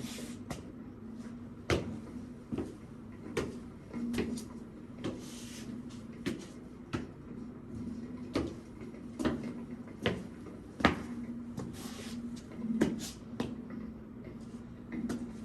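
A steady low hum-like tone holds throughout, swelling louder now and then, under irregular sharp knocks and clicks, with a few short bursts of hiss.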